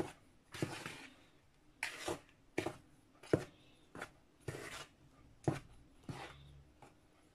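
Metal spoon stirring dry flour in a bowl: soft, short scraping swishes, a little under a second apart.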